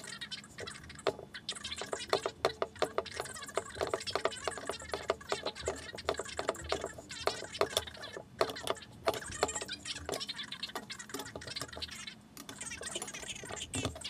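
Hand work on a steel bar clamped in a bench vise: a fast, uneven run of short metallic clicks and scrapes, several a second, with brief pauses.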